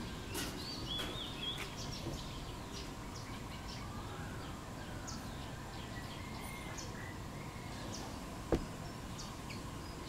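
Short, faint bird chirps and call notes over a steady outdoor background hiss, with a sharp click about eight and a half seconds in.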